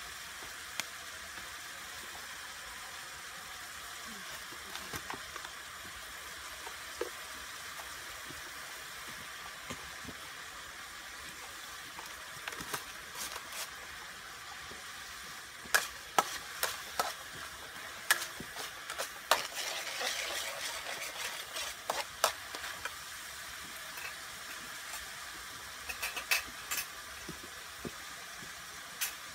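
Steady hiss of sauce sizzling in a steel wok over a portable gas stove, with a metal utensil clinking and scraping against the wok as the sauce is stirred, the clinks coming thickly in the second half.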